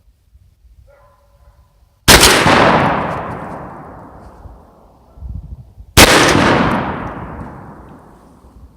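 Two loud 12-gauge shotgun shots firing rifled slugs, about four seconds apart, each followed by a long echo that fades over two to three seconds.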